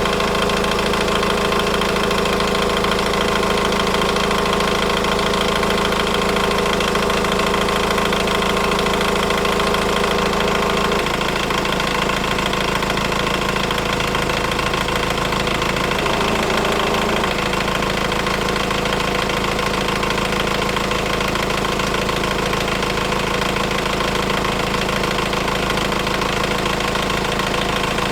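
Hyundai engine idling with a steady timing chain rattle: the chain has stretched and the timing chain tensioner has collapsed. The idle note shifts slightly about eleven seconds in.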